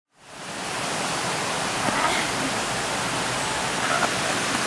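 Steady, even rushing of flowing water that fades in quickly at the start and then holds level.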